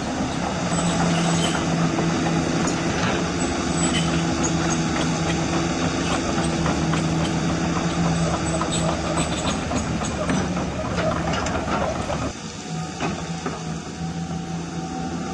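Hydraulic pump of a radio-controlled CAT 336E model excavator running with a steady hum, with small clicks and rattles of the machine working in dirt. About twelve seconds in the sound drops and thins out while the hum carries on.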